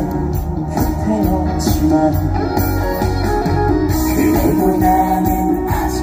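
A live band and a male singer performing a trot-pop song, played loud through concert speakers.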